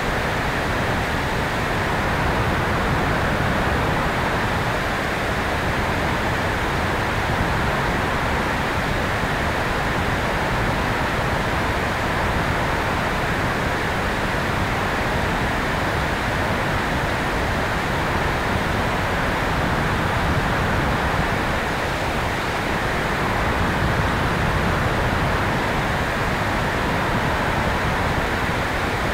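Steady loud rush of airflow over the microphone of a camera mounted on the tail of an electric RC airplane in flight, with no distinct motor tone coming through.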